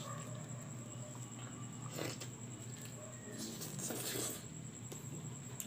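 A person eating roast chicken by hand: quiet biting and chewing mouth sounds, with short wet, rustly bursts about two seconds in and again around four seconds in, over a faint steady electrical hum.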